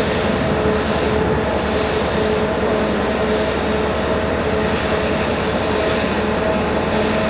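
Steady mechanical hum and rush from the machinery of a moored Invincible-class aircraft carrier, with a couple of constant tones running through it.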